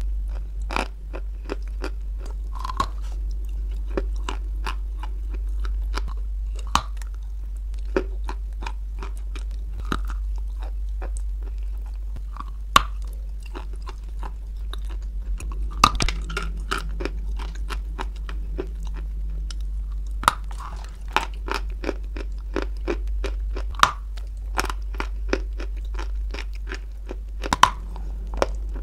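Close-miked biting and chewing of a dry white chalk-like lump: many sharp crunches and crackles, with a few louder single bites, over a steady low hum.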